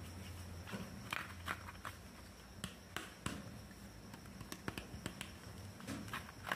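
Small plastic toy pieces being handled, giving irregular light clicks and taps, with a low hum that stops under a second in.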